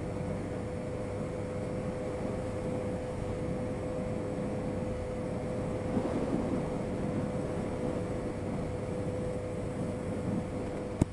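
Motorcycle riding noise, engine and wind together, as a steady drone with one even tone held throughout; a single sharp click near the end.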